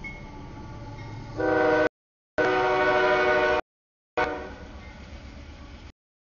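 A CSX freight locomotive's multi-note air horn sounds loud blasts for the grade crossing, over the low rumble of the approaching intermodal train. The sound cuts out completely twice for about half a second, and the horn fades into the train's rumble near the end.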